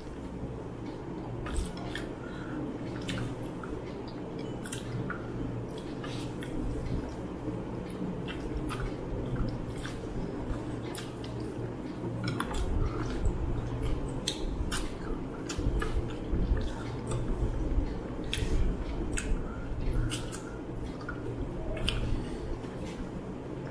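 Close-miked eating by hand: chewing, lip-smacking and wet squishing as fingers mix rice with mutton curry. Short sharp mouth clicks come every second or so over a low steady hum.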